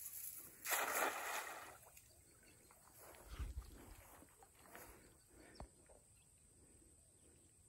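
Faint splashing and sloshing of river water, with one longer splash about a second in, then a few small splashes and knocks.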